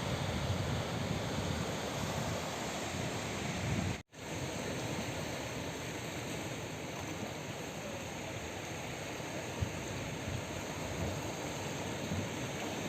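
Sea surf washing over rocks, a steady rush of water. The sound cuts out for a moment about four seconds in, then carries on; before the break a gusty low rumble of wind on the microphone is mixed in.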